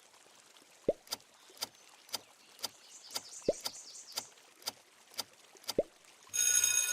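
Soft electronic ticks and pops about two a second, a few of them short rising drop-like blips, with faint high chirping midway. A bright ringing chime starts near the end.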